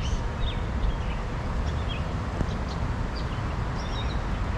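Small birds chirping in short, scattered calls over a steady low rumble of passing traffic.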